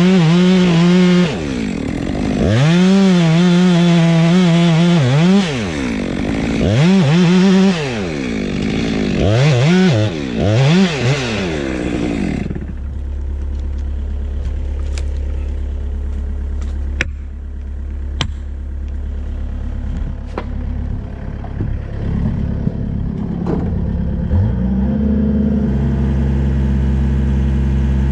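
Stihl chainsaw revved hard in about five bursts at the base of a tree trunk, then shut off about twelve seconds in. A mini excavator's diesel engine idles steadily underneath, with scattered clicks and clatter; near the end the engine speeds up to a higher, steady note.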